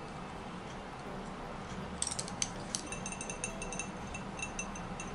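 Glass jar being handled, clinking in quick irregular taps, each with a short high ring, starting about two seconds in over a low room hum.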